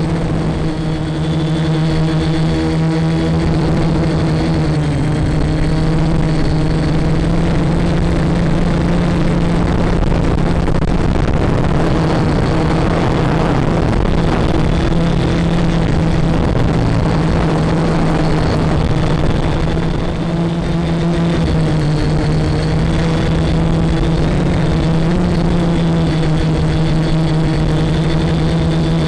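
FPV quadcopter's electric motors and propellers running in flight: a steady hum with a rushing hiss, its pitch shifting slightly now and then with the throttle.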